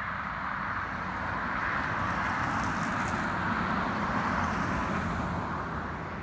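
A road vehicle passing by, its tyre and road noise swelling and then fading away.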